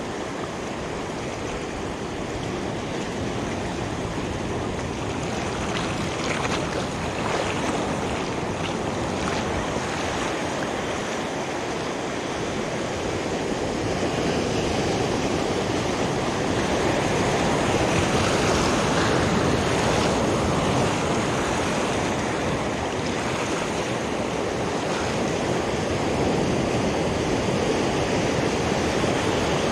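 Ocean surf washing over shoreline rocks, a steady rush of waves that grows gradually louder through the second half.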